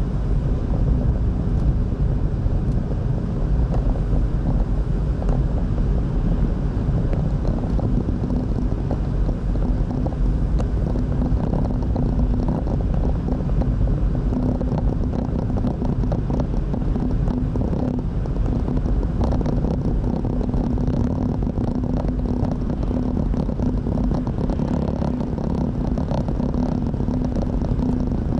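Car cruising at steady speed, heard from inside the cabin: an even low rumble of tyres and engine with a steady hum.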